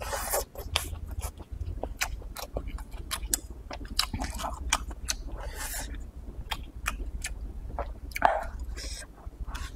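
Close-miked mouth sounds of a person eating stir-fried strips of firm Sichuan dried tofu (cowhide dried tofu) with shredded pork: wet chewing with many small clicks, and a few short sucking bursts as strips are drawn in, the loudest about 8 seconds in.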